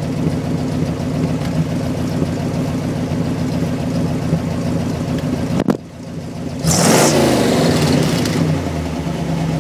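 A 1979 International Scout's 345 V8 idling steadily through Thrush glasspack mufflers, then revved once about seven seconds in and falling back toward idle. A short knock comes just before the rev.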